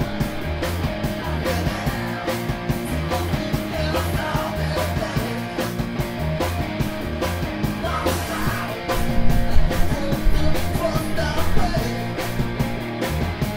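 Live rock band playing: electric guitars, bass and drums, getting a little louder about two-thirds of the way through.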